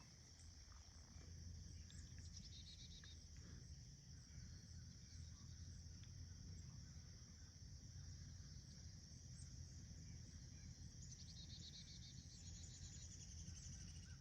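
Insect chorus: a steady, high-pitched trilling, with a second, pulsed insect call joining twice, briefly near the start and again near the end.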